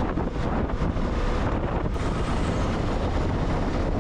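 Auto-rickshaw riding along a highway: its engine running steadily with wind and road noise rushing through the open cabin.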